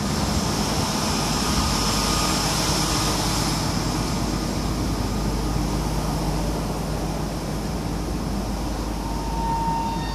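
Steady mechanical drone of an oil tanker's shipboard machinery, an even engine-like rumble with a hiss over it.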